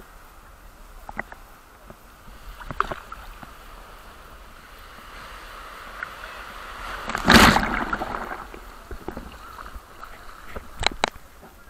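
Sea waves washing in, one building to a loud crash about seven seconds in, with a few short sharp splashes or knocks around it.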